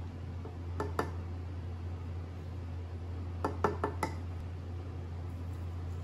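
Light clinks of glass and metal kitchenware, a glass mason jar and a metal spoon, over a steady low hum. Two clinks come about a second in, and four come in quick succession a little past the middle.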